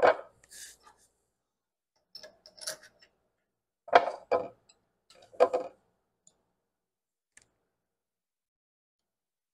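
Sharp metal clanks and clinks of a steel lathe chuck being handled on its cast iron backplate and a hex key being picked up and fitted to the mounting bolts. There are four short groups: the loudest at the start, one about two and a half seconds in, and two more about four and five and a half seconds in.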